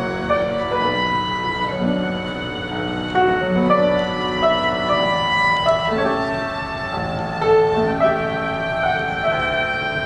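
An ensemble of violins playing a lyrical romance in several parts, with held bowed notes moving in harmony.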